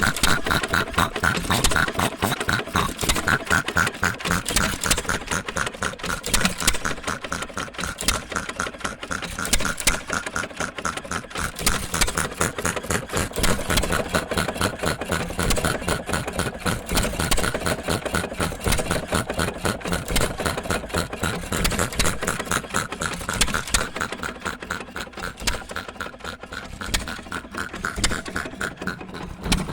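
1916 Associated 2-1/4 HP hit-and-miss gas engine running its belted air compressor unit, with a fast, even, continuous clatter of strokes.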